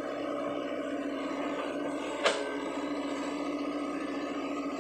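Sany SY55C mini excavator's diesel engine running steadily as the machine digs, with one sharp clank about two seconds in.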